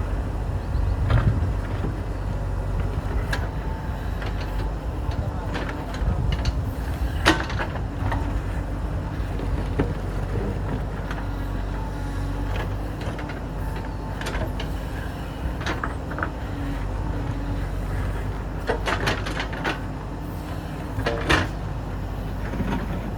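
JCB 3DX backhoe loader's four-cylinder diesel engine running steadily under work. Sharp knocks and clatters come now and then, one about seven seconds in and a cluster near the end.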